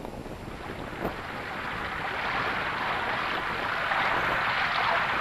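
Ocean surf: waves breaking and washing up a sandy beach, a steady rushing that grows louder. A brief click about a second in.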